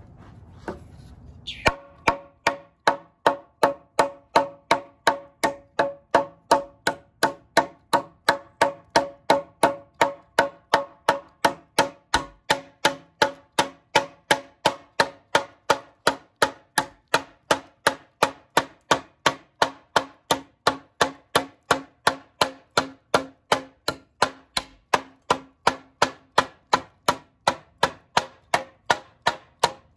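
Work Tuff Gear Nomad field knife chopping into an old 2x4: rapid, even blade strikes on the wood, about three a second, starting after a quiet moment of about a second and a half. Each strike leaves a short ringing tone from the board.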